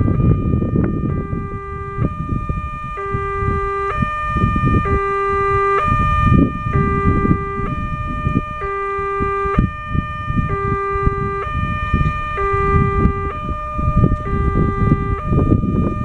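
Railway level-crossing electronic warning bell sounding with the barriers down, which signals an approaching train. It plays a short melody of stepping tones that repeats about every two seconds, over a low, uneven rumble.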